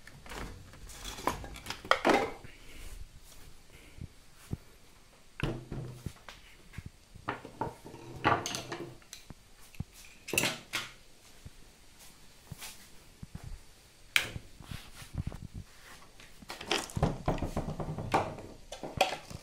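Scattered knocks, scrapes and clatter of an electric sander and its cord being lifted from a pile of power tools and set down on a wooden workbench. The sander's motor is not running.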